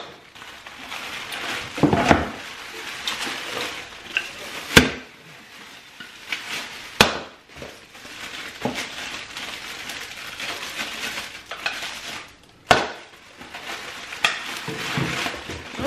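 Plastic wrapping rustling and crinkling as new food-storage containers are unpacked and handled, with a few sharp knocks of containers being set down, about four in all.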